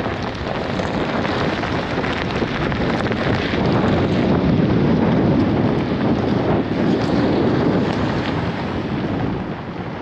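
Wind buffeting the microphone: a loud, steady rushing rumble that grows a little stronger in the middle.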